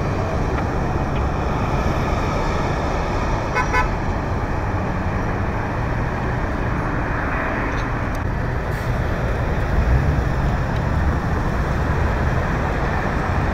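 Steady freeway traffic noise: engines and tyres of cars and trucks on the road, with a brief high-pitched toot about three and a half seconds in.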